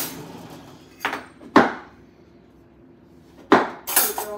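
Kitchen knife chopping through vegetables and knocking on a wooden cutting board: sharp, irregular knocks, two about a second in and a quick cluster near the end.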